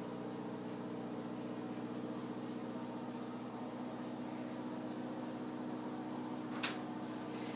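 Tankless gas water heater running with a steady hum. A single sharp click near the end.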